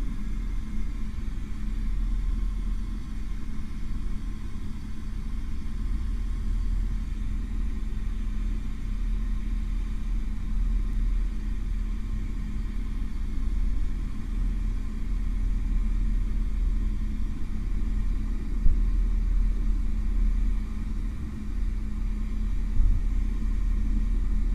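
Airbus H125 (AS350) single-turbine helicopter in flight, heard from inside the cockpit: a steady low rumble from the rotor and turbine with a constant hum.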